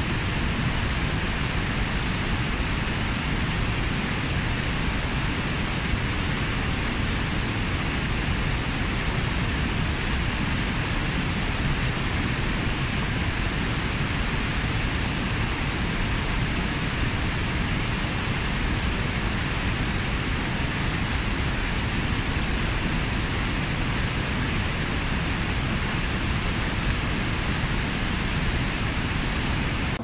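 A cascade waterfall: water rushing down over stepped rock slabs in a steady, unbroken rush.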